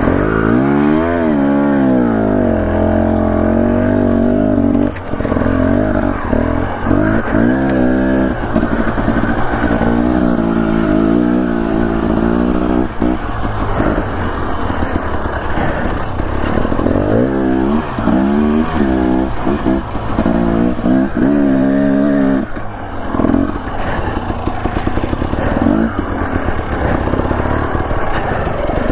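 Dirt bike engine under constant throttle changes, its pitch rising and falling again and again as the rider opens and closes the throttle, with brief moments off the gas.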